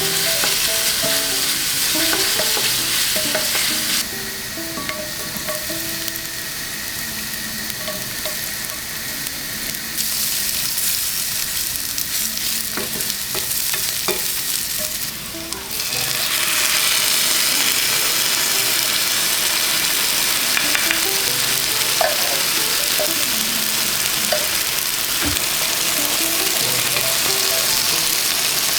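Food sizzling in hot oil in a frying pan while being stirred, a steady crackling hiss that grows louder from about sixteen seconds in.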